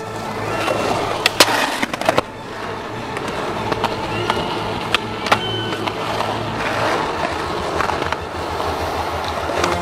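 Skateboard wheels rolling over rough concrete with a steady rumble, broken by sharp clacks of the board: a cluster about a second in and a couple more around five seconds.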